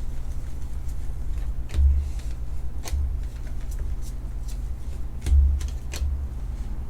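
Baseball trading cards being handled and flipped through, with light clicks and snaps, and a few dull knocks on the table. A steady low hum runs underneath.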